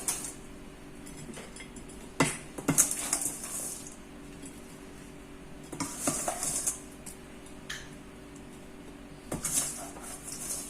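Kitchen utensils clinking and scraping against a plate in three short bursts as food is served out, over a faint steady hum.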